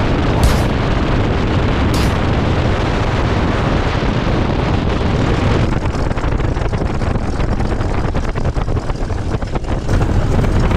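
Boeing Stearman biplane's radial engine running as the plane rolls on the ground, with heavy wind rush on the microphone. About halfway through, the engine is throttled back to a slower, lumpier taxi idle in which its individual beats can be heard. A couple of sharp clicks sound in the first two seconds.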